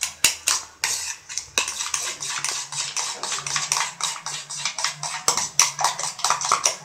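Hot oil crackling in a cast-iron pan: rapid, irregular pops over a steady sizzle that fills in after about a second and a half.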